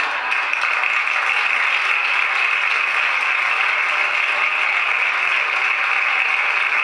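Audience applauding: steady, dense clapping with no break.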